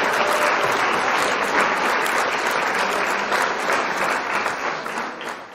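Crowd applause, steady clapping that fades out near the end.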